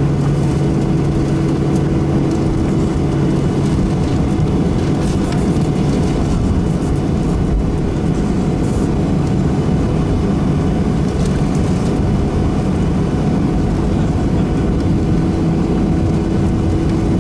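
Steady engine and airframe noise of a Boeing 737-800, heard inside the cabin as the jet taxis after landing. Its CFM56-7B turbofans are running at low power, giving an even rumble with a faint steady hum and no sudden changes.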